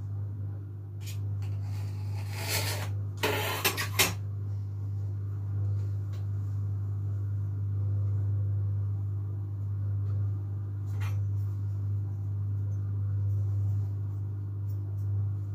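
A knife and small tools scraping, rubbing and tapping on a countertop while fondant is cut and rolled, loudest in a burst of scraping with a few sharp clicks about two to four seconds in, then lighter ticks. A steady low hum runs underneath.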